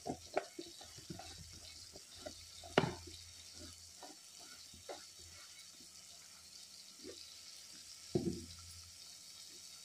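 Onion-tomato spice paste (masala) sizzling gently as it fries in oil in a pan on low flame, with scattered small pops and crackles. A sharper click comes about three seconds in and a short thump just after eight seconds.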